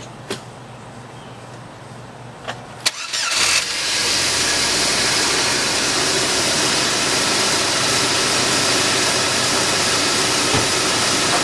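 A few sharp clicks, then the Chevy S10's four-cylinder engine cranks and starts about three seconds in and settles into a steady idle.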